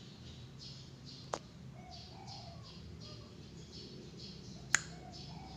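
Zebra dove (perkutut) cooing in short repeated phrases, over a steady high chirping that repeats several times a second. Two sharp clicks cut through, about a second in and near the end, the later one the loudest sound.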